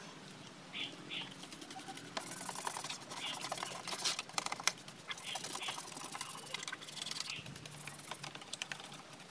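Scrubbing on a scooter's body and wheel area while it is washed by hand: irregular short scratchy strokes and small clicks and knocks, with a hissing stretch about two seconds in.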